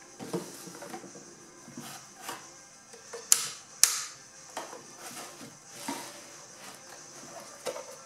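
Handling noise from a small plastic mini dehumidifier and its cardboard packaging on a table: scattered light knocks and rustles, with two sharp plastic clicks about half a second apart a little after three seconds in, as the unit is picked up.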